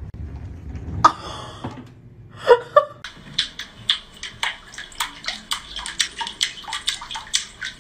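A cat batting at the water of a filled bathtub with its paw: a quick, irregular run of splashes, about three a second, starting about three seconds in. A couple of sharp knocks come first.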